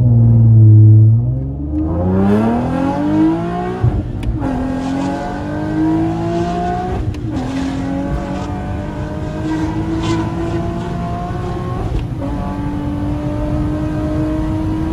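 Nissan 370Z's 3.7-litre VQ37VHR V6, breathing through long-tube headers and a Torqen catback exhaust, screaming under hard acceleration, heard inside the cabin. The pitch climbs, breaks and drops at upshifts about four and seven seconds in, climbs again, breaks once more near twelve seconds, then holds steady.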